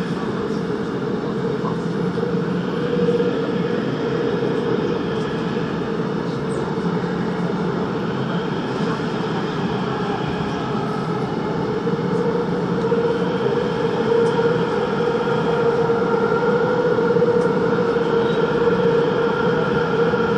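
Busan Metro Line 3 subway train running through a tunnel: a steady rumble of wheels on rail with a constant hum. A higher tone comes in about halfway through, and the sound grows a little louder toward the end.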